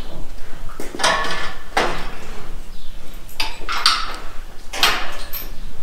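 Steel barn stall railings clanking and rattling as they are handled: about six sharp metallic knocks at irregular intervals, each with a short ring, the loudest about a second in.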